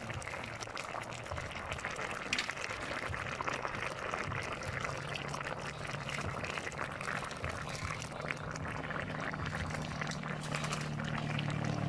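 Ginataang palaka, frog stewed in coconut milk, bubbling in a wok: a steady, dense crackle of small popping bubbles.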